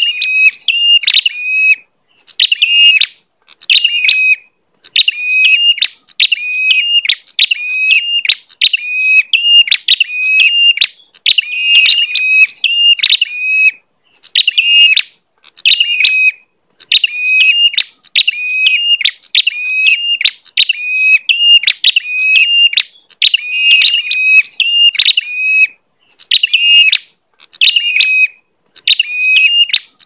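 A prenjak, a small Indonesian warbler, singing loud, rapid bursts of repeated shrill chirps. Each burst lasts a second or two, with short pauses between them, over and over.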